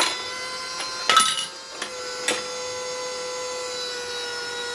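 Automatic brass case annealing machine running: a steady motor whine, broken by sharp metallic clicks and clatters a few times in the first half as the indexing wheel turns and 338 Lapua cases move through and drop out.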